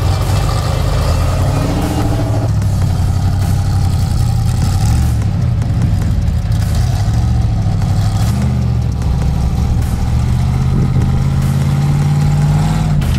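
Rock-crawling Jeep's engine working under load as it climbs a steep rock ledge, with the throttle going up and down. The engine's pitch climbs and holds higher near the end.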